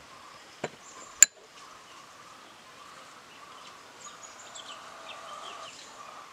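Birds chirping over a faint steady outdoor hum, with two sharp clicks about a second in, the second one loud.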